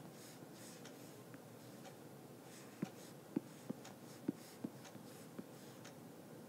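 Faint steady room hiss with a handful of soft, short taps and clicks, about six of them, bunched between about three and five and a half seconds in.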